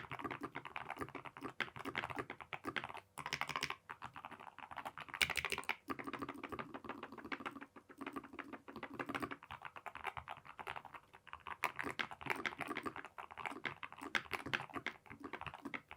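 Typing on a Keychron K2 HE keyboard with magnetic Hall-effect switches: a fast, uneven run of thocky keystrokes with a few short pauses.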